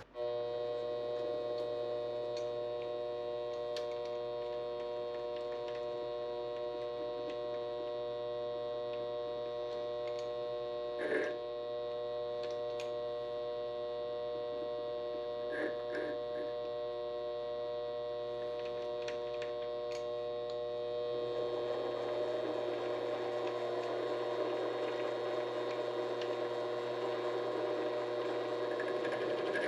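Vevor 7x12 mini-lathe running steadily, its motor and gear train giving a constant whine, with a few light clicks, while aluminum stock is faced. About two-thirds of the way through, a rougher hiss joins the whine.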